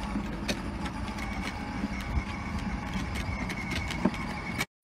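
Electric motor of a child's battery-powered ride-on toy motorbike running, its plastic wheels rolling over rough asphalt: a thin steady high whine over a rumbling noise, with a few light clicks. It cuts off suddenly near the end.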